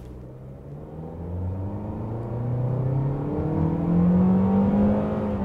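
2022 Toyota Corolla Cross's 2.0-litre naturally aspirated four-cylinder engine accelerating hard, heard from inside the cabin: the engine note climbs steadily in pitch and loudness, then levels off near the end.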